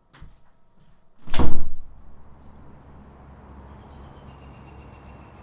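One loud thud-like sound about a second and a half in, swelling and fading over about half a second, followed by a low steady hum with a faint thin high tone.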